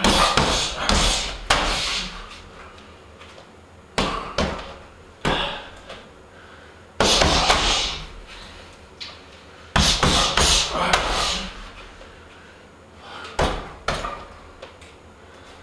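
Hand and foot strikes landing on a hanging heavy bag: sharp thuds in quick groups of two to four, with pauses of a couple of seconds between groups.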